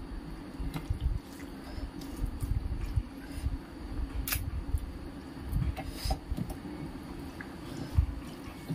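Wet, squelchy sounds of fingers mixing rice with dal on a steel plate, and mouthfuls being chewed, with scattered sharp smacking clicks over a steady low hum.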